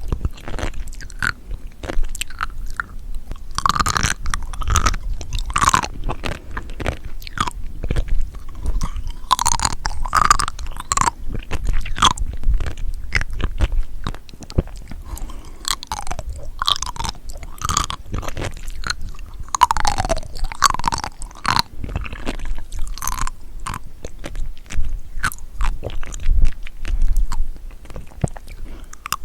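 Close-miked chewing of seafood such as shrimp, octopus, herring roe or sea grapes: continuous wet, smacking mouth sounds with many small crisp clicks and pops.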